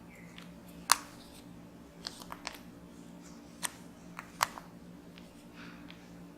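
Small plastic clicks and taps from handling an SJCAM SJ6 Legend action camera and its battery: one sharp click about a second in, a few lighter clicks soon after, and two more a little past halfway.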